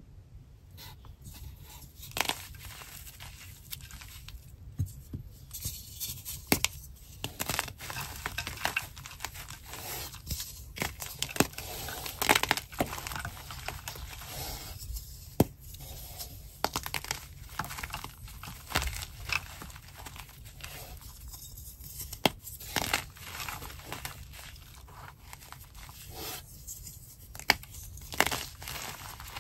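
Blocks of white chalk being crushed and crumbled by hand into a plastic bowl of glitter water: irregular dry crunches and sharp cracks over a soft gritty crumbling.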